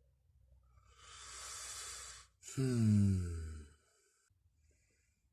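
A man's sigh: a breathy intake of breath, then a voiced exhale sliding down in pitch.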